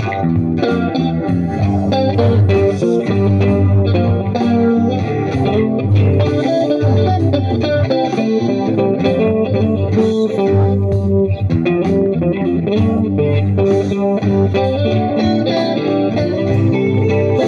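Stratocaster-style electric guitar playing an instrumental passage of a song, with a steady bass line beneath.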